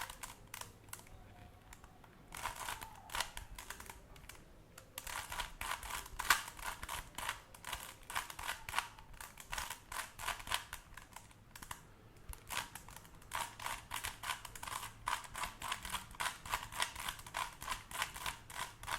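A 3x3 Rubik's Cube being turned rapidly by hand during a solve: quick runs of plastic clicks as the layers rotate, broken by a few short pauses.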